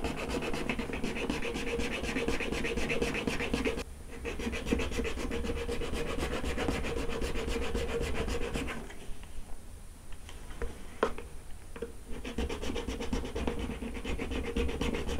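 Small square needle file rasping back and forth across the end of a thin clear plastic cocktail stirrer in quick, even strokes, cutting notches to shape it into a cross-point tip. The filing stops briefly about four seconds in and drops to a few light ticks for a few seconds around the middle before picking up again.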